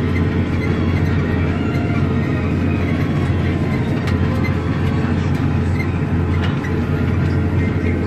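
Claas Axion tractor's diesel engine running steadily under load while pulling a mounted reversible plough through the soil, heard from inside the cab as an even low drone.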